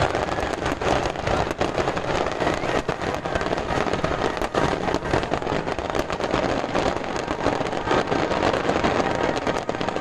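Fireworks crackling: a dense, continuous mass of small pops and crackles that keeps a steady loudness.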